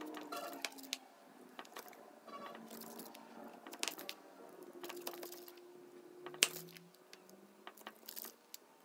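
A sharp knife cutting straight down through a slab of soft nut-studded nougat, the blade clicking down through the parchment paper with each cut: a series of short sharp clicks, the loudest about six and a half seconds in.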